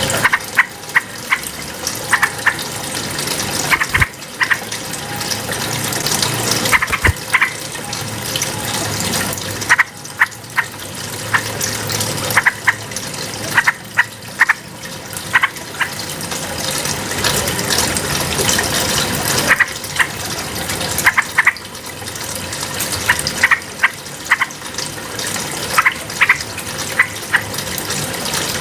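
Yellow-vented bulbul giving short, sharp call notes in scattered clusters over a steady rush of running water.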